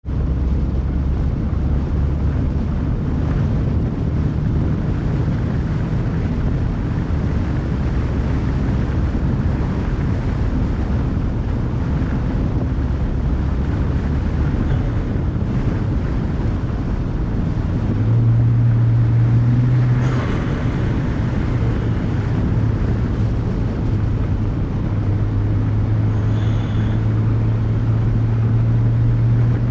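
BMW 335i's N54 twin-turbo inline-six running under way, with wind noise. About 18 seconds in, the engine note rises as it pulls harder. About two seconds later, the throttle lifts and the HKS blow-off valve gives a short hiss as the note drops back.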